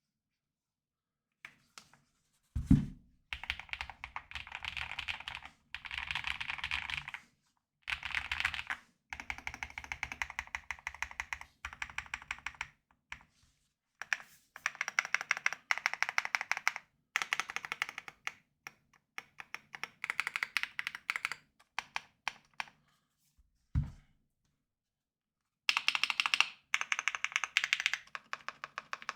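Typing on an AKKO MU01 mechanical keyboard with a wooden case: fast runs of key clacks in bursts separated by short pauses, with two heavier thumps, one a few seconds in and one near the end.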